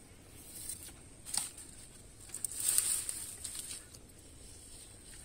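Rustling of leafy undergrowth as the plants are handled, loudest from a little past two seconds in to near four seconds, with one short sharp click about a second and a half in.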